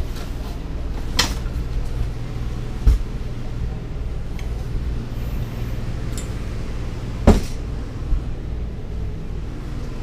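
Hide-a-bed sofa being pulled out and unfolded into a bed: its folding frame gives a few knocks and clunks, the loudest about seven seconds in. A steady low hum runs underneath.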